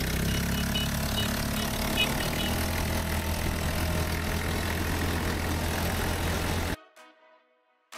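Dune buggy engine running steadily, with a low drone and noise reaching high up. It cuts off suddenly near the end.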